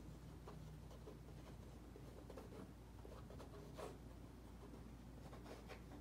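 Faint rubbing and light scratchy taps of a gloved hand working wet acrylic paint on a canvas, over a low steady room hum.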